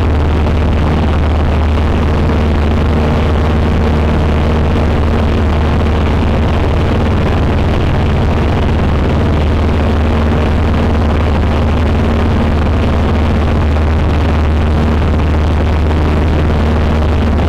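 Cessna 150's four-cylinder Continental O-200 engine and propeller running steadily and loud, a low hum with no change in pitch.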